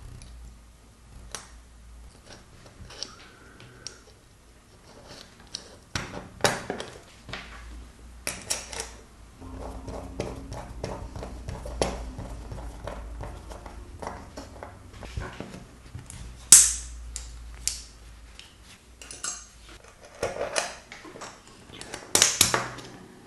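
Small steel multi-tool parts clicking and clinking as they are handled on a work surface: irregular sharp clicks, with a few louder clinks near the middle and near the end.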